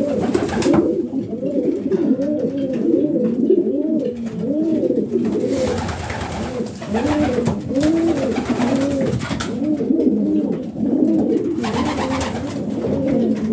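Several domestic pigeons cooing together, many overlapping rising-and-falling coos. A few short flurries of wing flapping break in as a pigeon flies up.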